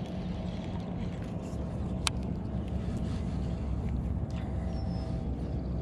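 A single sharp click from a baitcasting reel about two seconds into a cast, over a steady low rumble with a faint even hum. A short high chirp follows near the end.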